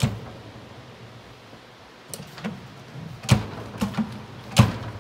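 Door of a 1983 Amana Radarange microwave oven being opened and shut, the latch and door interlock switches clicking and the door knocking against the frame. There are several sharp clicks and knocks, with the loudest near the end.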